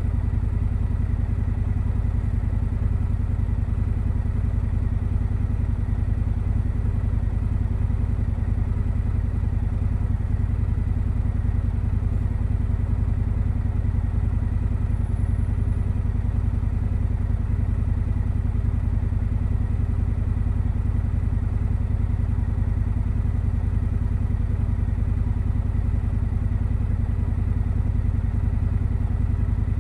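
2025 Indian Scout Sixty Bobber's V-twin running through the stock exhaust at a steady, unchanging speed, a deep even engine sound.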